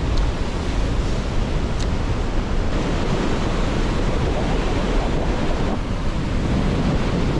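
Ocean surf breaking and washing on a beach, a steady rush, with wind buffeting the microphone.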